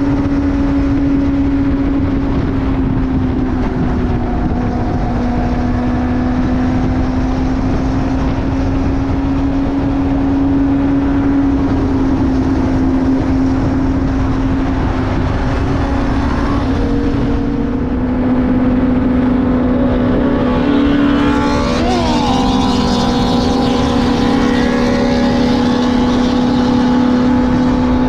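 Benelli TNT600's inline-four engine running at a steady high cruise, one even drone over loud wind rush. Briefly, about three-quarters of the way through, a quick sweep up and down in pitch cuts across it.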